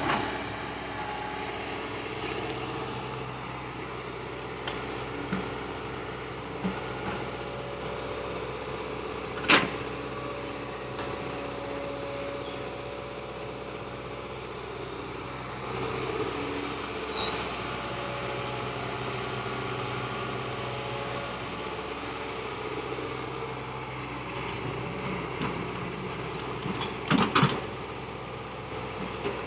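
Hydraulic excavator's diesel engine running steadily while digging, with a sharp clank about ten seconds in and a short cluster of clanks near the end.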